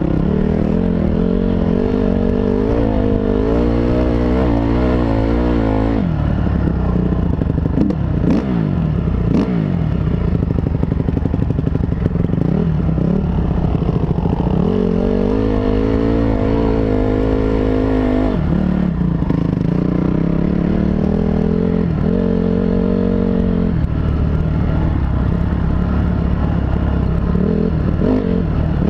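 2005 Honda CRF250R dirt bike's single-cylinder four-stroke engine running under load on a dirt trail, its revs rising and falling with throttle and gear changes, dropping sharply a few times.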